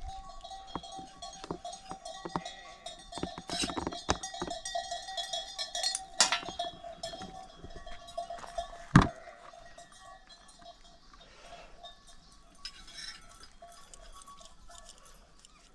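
Metallic clinking and ringing with irregular knocks, and one sharp loud knock about nine seconds in. It quietens after that.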